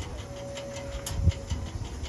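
Backhoe loader's diesel engine running with a rapid ticking clatter, with heavier knocks about a second in and a brief steady whine through the middle.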